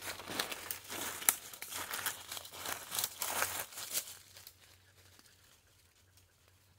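Dry leaves and twigs rustling and crackling as someone pushes through brush, a dense run of small cracks for about four seconds that then fades to quiet.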